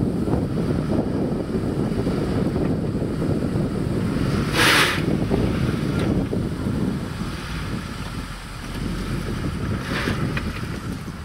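A UAZ Patriot's engine working under load as the SUV tries to climb out of a ditch it is stuck in, with heavy wind noise on the microphone. A short, sharp hiss comes about four and a half seconds in.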